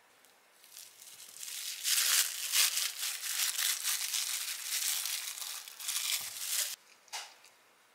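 Plastic cling film crinkling as it is peeled open from around a ball of miso paste, with many quick crackles over about five seconds and one last short crackle near the end.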